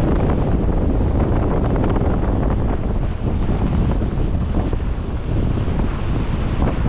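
Strong wind buffeting the microphone, a steady low rumble, with ocean surf rushing behind it.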